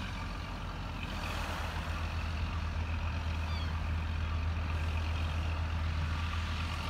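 A heavy diesel engine running steadily with a deep, even hum. A brief rush of noise comes about a second in.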